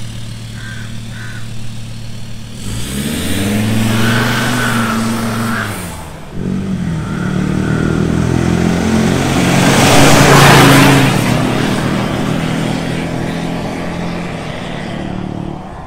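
Ford Ranger Wildtrak diesel pickup on a full stainless-steel exhaust with a custom downpipe. It idles, then revs up and pulls away with the exhaust note rising, and later accelerates past, loudest about ten seconds in, before fading away.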